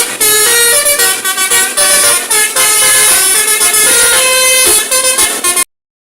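Bus 'telolet' multi-tone air horn playing a fast, loud tune of rapidly changing notes. It cuts off abruptly near the end.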